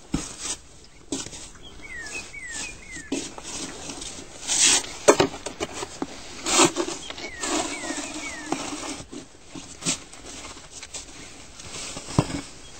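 A bird calling in short falling chirps, three or four in quick succession, twice. Between the calls, a snow shovel scrapes and crunches in the snow a few times, louder than the bird.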